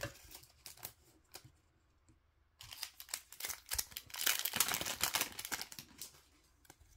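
2023-24 Upper Deck MVP hockey card pack wrapper being torn open and crinkled: a dense crackling rustle lasting about three seconds, after a few light taps in the first second or so.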